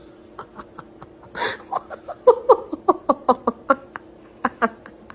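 A person laughing in a quick run of short giggles, about five a second, then two more short laughs near the end.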